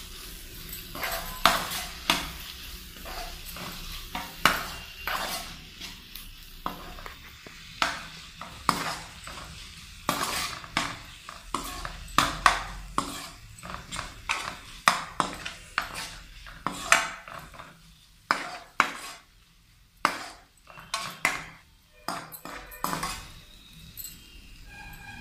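Steel ladle scraping and knocking against a frying pan as diced potatoes are stirred in hot oil, with a light sizzle underneath. The strokes are irregular, several a second, with a short lull about eighteen seconds in.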